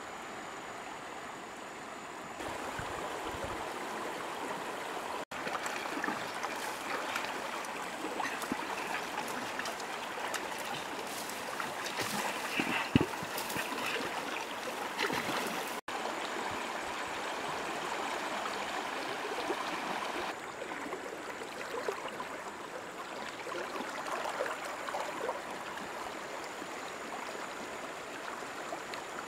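Shallow river water rushing over stones, with splashing from wading and a fish thrashing in the shallows, busiest in the first two-thirds. A single sharp knock about halfway through.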